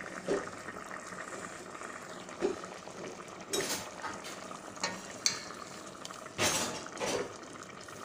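Stew simmering in a stainless steel pot, with a steady bubbling hiss. From about halfway through, a metal spoon clinks against the pot several times as the stew is stirred.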